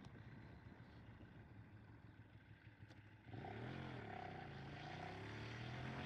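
Ducati Streetfighter 848's L-twin engine under way: faint wind and road rumble at first. About three seconds in the engine note comes up sharply, wavers, then rises steadily in pitch as the bike accelerates.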